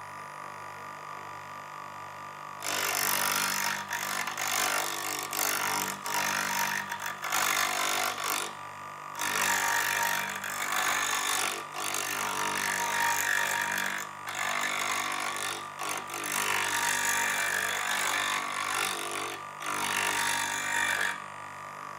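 Bench grinder motor running with a steady hum, and from about three seconds in a chisel's steel ground dry against the grinding wheel in repeated passes: a harsh grinding noise broken by short gaps, stopping about a second before the end.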